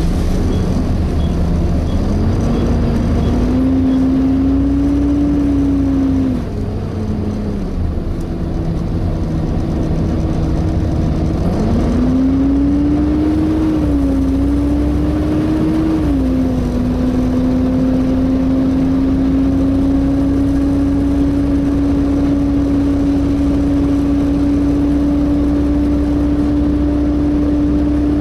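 Volvo B7TL bus's cooling fan making its hoover-like whine over the engine, heard on board. The whine climbs in pitch twice as the engine picks up, drops back in between, then holds steady through the second half.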